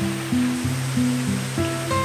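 Background music, a slow melody of notes changing about every half second, over the steady rush of a shallow rocky stream.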